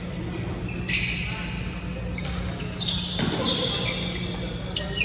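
Badminton rally on an indoor court: sharp racket hits on the shuttlecock about a second in, near three seconds and at the end, with short high squeaks of shoes on the court mat. Under them runs a steady low hum.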